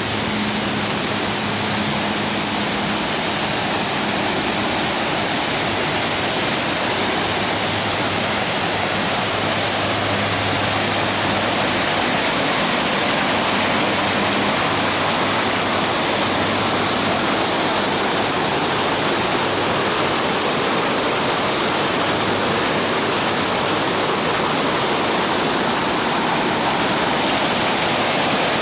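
Rushing water: a steady, loud, unbroken rush like a stream or small waterfall running close by.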